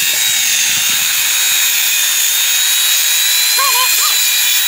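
Corded Ridgid circular saw running and cutting across a wooden fence picket, a loud steady high whine over the hiss of the blade through the wood.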